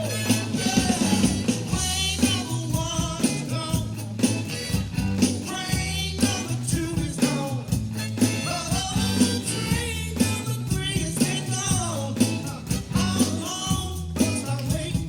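Upbeat song with a male singer over a steady driving beat, bass and guitar.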